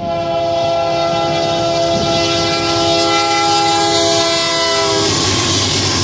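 Union Pacific diesel locomotive's air horn sounding one long, steady, multi-note blast for a grade crossing. The horn cuts off about five seconds in, and the noise of the locomotive passing close by takes over: engine and wheels on the rails.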